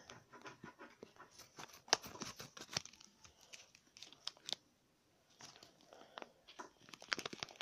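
Clear plastic packaging crinkling and tearing in the hands as it is worked off a saltwater oyster: a run of small crackles and clicks, with a short pause a little past the middle.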